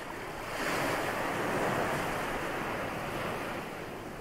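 Ocean surf: a wave breaking and washing up a shore. It swells about half a second in, then slowly eases off.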